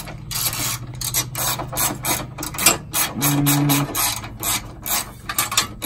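Hand ratchet wrench loosening bolts on a car's front radiator support, its pawl clicking in quick rasping strokes, about four a second.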